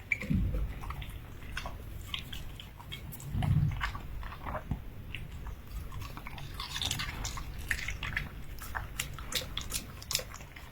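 A puppy eating, with many small chewing and biting clicks throughout and two louder low thumps, one just after the start and one about three and a half seconds in.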